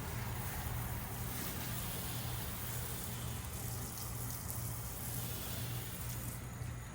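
Pressure-washing equipment running steadily: a constant low engine or pump hum under an even hiss of spray.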